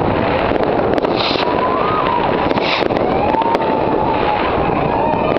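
Many fireworks and firecrackers going off across a city at once: a dense, continuous crackle of pops and bangs, with two short bursts of hiss about a second and two and a half seconds in. A long wavering whistle runs through it.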